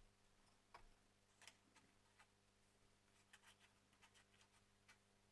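Near silence: a steady faint electrical hum with a few faint, irregular clicks from hands handling the paper and the mini sewing machine.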